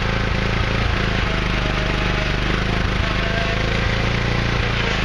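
Kohler Courage 19 hp engine on a Craftsman LT2000 riding mower running steadily, shortly after a cold start following months of sitting.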